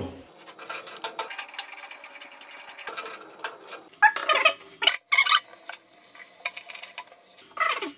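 Chrome shower-valve handle being fitted back onto its valve stem: scattered light metallic clicks and taps, clustered about four to five seconds in and again near the end.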